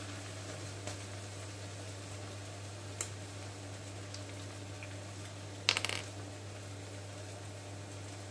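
A tube of tomato puree being opened and squeezed into a pan: a single click about three seconds in, then a short sputtering burst near six seconds. A steady low hum runs underneath.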